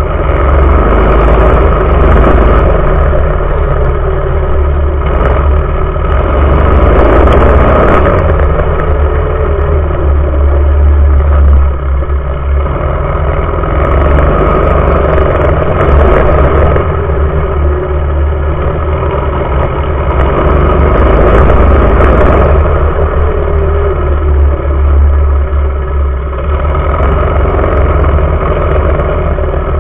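Mini bike's small engine running hard at racing speed, recorded up close, its note rising and easing with the throttle and dipping briefly about twelve seconds in and again near the end.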